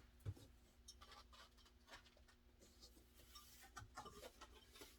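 Near silence with faint rustling and a few light knocks of cardboard packaging being handled.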